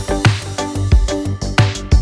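Background electronic music with a steady kick-drum beat and a melodic synth line.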